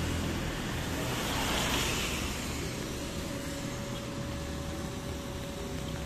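Steady rushing noise of rain, wind and tyres on a wet road from a moving motor scooter, with the scooter's engine running underneath. A thin steady whine joins about halfway through.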